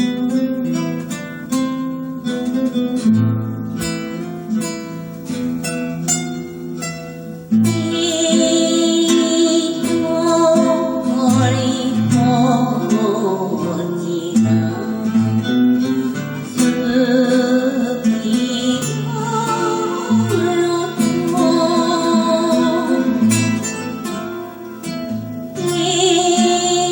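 Instrumental passage of an enka song: acoustic guitar strummed and plucked. About eight seconds in, a fuller, louder accompaniment comes in with a wavering melody line.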